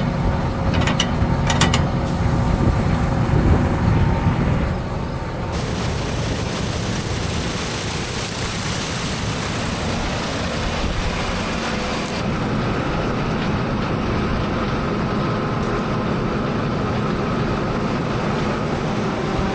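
Combine harvester running, a heavy low rumble with a few sharp clicks in the first seconds, then a hissing rush from about five to twelve seconds in before settling into a steadier drone.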